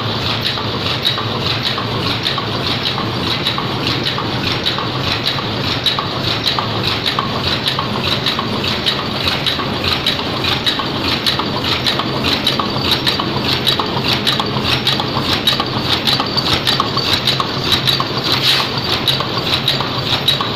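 Paper cup making machine running at high speed: a steady, rapid mechanical clatter of closely spaced clicks from its forming and feeding stations.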